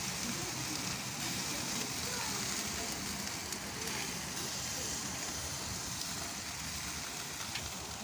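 Sausages sizzling steadily on a charcoal grill, with a few faint crackles.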